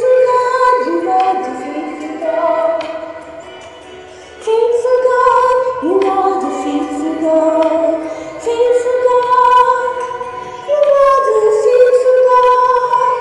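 A slow worship song sung by a woman, in long held notes that come in phrases of a few seconds, each swelling up after a short dip.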